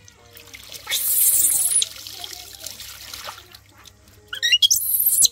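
Water splashing and trickling as a baby monkey is washed by hand on a wet concrete floor, with two louder bursts of splashing, about a second in and near the end.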